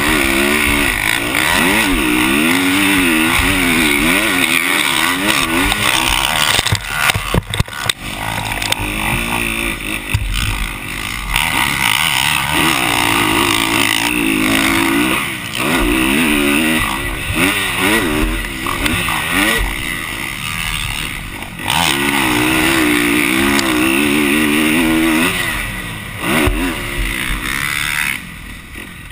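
Motocross motorcycle engine revving up and falling back over and over as it is ridden hard around a track, with wind rush over a helmet camera. A few sharp knocks come about seven to eight seconds in.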